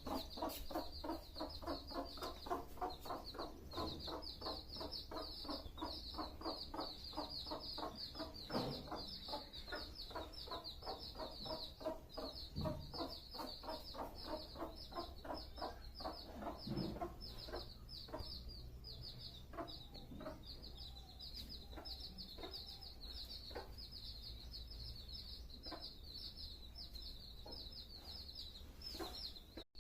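A domestic hen clucking in a rapid, even series, about three clucks a second, over the continuous high peeping of her chicks. The clucking thins out to occasional clucks about halfway through, while the chicks keep peeping.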